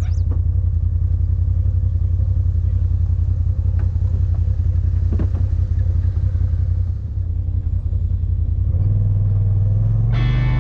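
Side-by-side UTV engine running with a steady low rumble, its revs rising and its pitch stepping up about nine seconds in. Guitar music comes in near the end.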